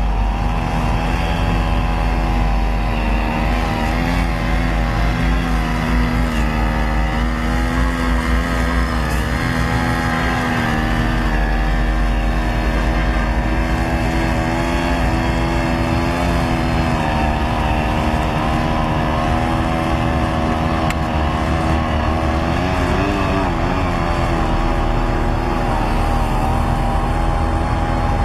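Small outboard motor on a folding fishing boat running steadily under way, its pitch wavering slightly, with a brief wobble about three quarters of the way through.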